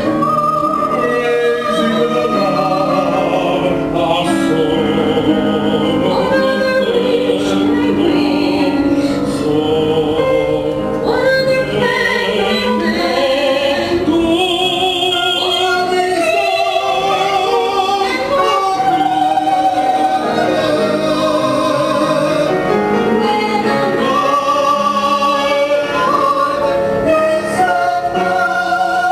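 Operatic-style singing with heavy vibrato over orchestral accompaniment, music from a stage musical.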